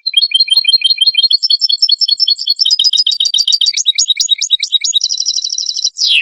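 European goldfinch singing: a fast twittering run of high chirping notes, turning into a buzzy trill near the end and closing on a falling note that cuts off sharply.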